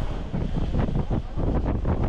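Wind buffeting the microphone in quick irregular gusts, over the low rumble of a moving train.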